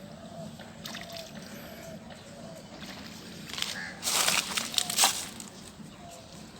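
Water splashing and sloshing for about a second, starting about four seconds in, as a hooked snakehead fish thrashes while being pulled from the pond.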